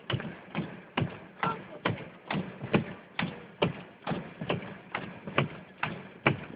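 Steady, even tapping inside a car, about two knocks a second, like a windshield wiper or hazard-light flasher working in the cabin.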